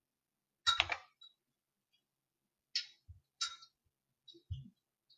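About four short, scattered clicks and taps at a computer's mouse and keyboard, some with a dull low knock under them.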